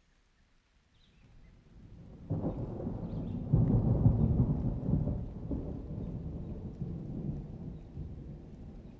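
A thunderclap in a rainstorm: a deep rumble builds from near quiet, breaks in sharply about two seconds in, is loudest around four seconds, then rolls on and slowly fades.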